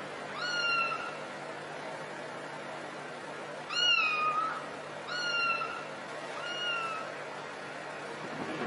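A cat meowing four times: short, high-pitched meows that rise quickly and then hold, with pauses between them.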